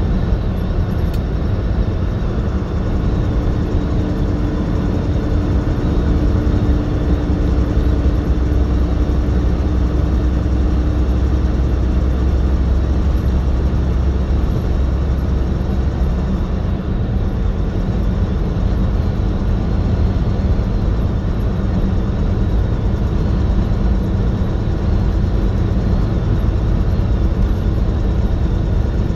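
Semi-truck engine and tyre noise heard inside the cab while cruising at highway speed: a steady low rumble, with a higher steady hum for several seconds in the first half.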